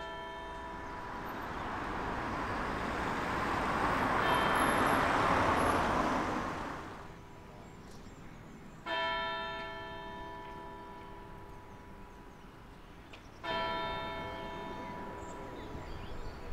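Single church bell tolling, one stroke about every four and a half seconds, each ringing on and slowly dying away. A passing vehicle rises and falls over the first few seconds and is loudest about five seconds in.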